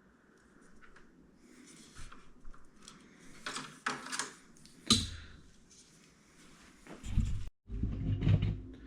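Handling sounds of motorcycle saddlebag parts being worked on a bench: scattered clicks, knocks and rustling, with the sharpest knock about five seconds in and dull thumps near the end.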